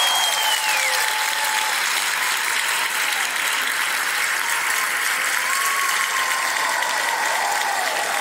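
Theatre audience applauding steadily, with a high whistle that slides down and fades about a second in.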